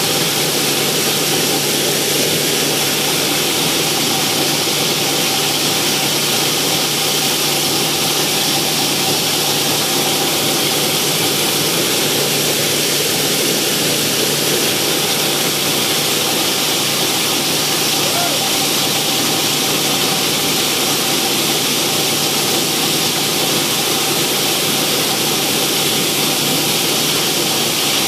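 PET bottle crusher (plastic granulator) running, chopping green plastic bottles fed in by a conveyor: a steady, loud, unbroken grinding rattle with a constant hum underneath.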